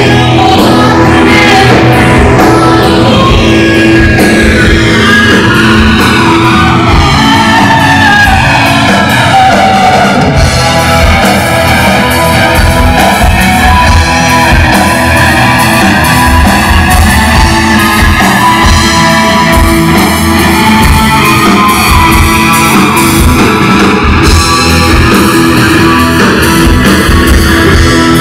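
Live rock band playing loud: electric guitars, bass and drums with shouted singing, the sound swept slowly by a flanger effect that bends the whole upper range down and back up.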